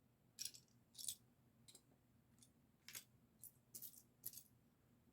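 Faint, scattered clicks of small plastic Lego pieces being handled and sorted through, about eight light ticks spread over a few seconds.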